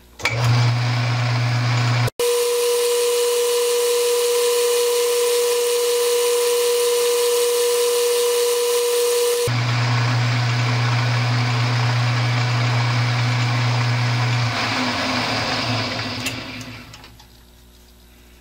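Metal lathe starting up and running with a steady motor hum while the tool takes a roughing cut on a leadscrew bar. About two seconds in the sound breaks off and gives way to a steady higher whine for several seconds. Then the hum returns, and the spindle runs down and stops a few seconds before the end.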